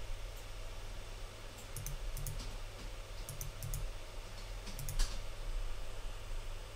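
Computer mouse clicking, a few scattered clicks that often come in close pairs, over a low steady hum.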